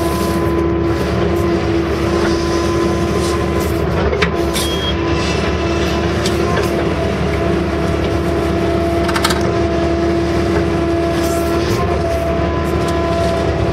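Case CX160 excavator's diesel engine and hydraulics running steadily under work, heard from inside the cab, with a constant whine over the engine. A couple of brief knocks stand out, about four seconds in and again past nine seconds.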